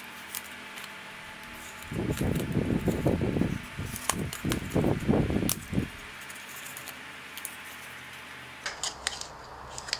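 Paper wrapping of a small photocard package rustling and crinkling for a few seconds as it is cut and pulled open, with a few sharp clicks.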